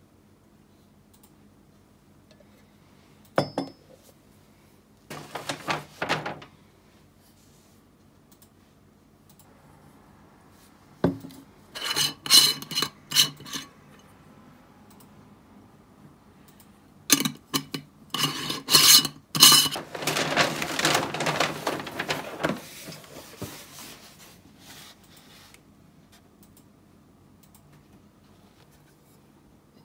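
Dishes and cutlery clinking and clattering in several short bouts, with a longer stretch of scraping a little past the middle, over a faint steady low hum.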